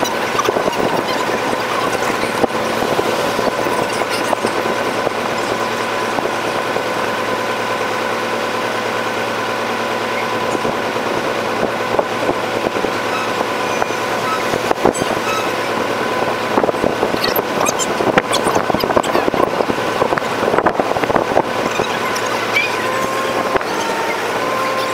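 Boat engine running, sped up with the fast-forwarded recording into a steady high whine with many short clicks; the pitch steps up and down a few times near the end.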